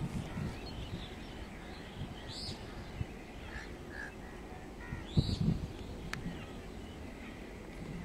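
Scattered short bird calls, the strongest about five seconds in, over a steady low rumble.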